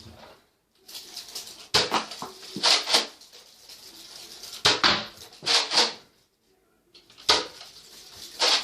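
Plastic clicking and clattering in three bursts, from a Nerf blaster being handled, primed and fired.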